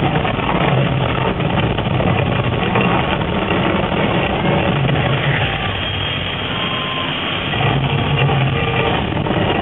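Loud, steady, deep rumbling roar of the Mirage's staged volcano eruption: gas fire effects burning while the show's amplified soundtrack rumbles, swelling and easing.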